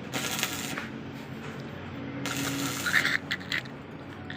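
Arc welding: a crackling, sizzling arc struck in short runs, one of under a second at the start and another of over a second from about two seconds in, with sharp pops in the second run.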